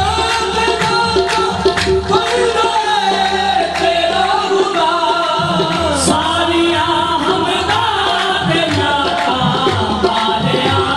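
Qawwali music: a voice singing over sustained instrument notes and hand-drum beats.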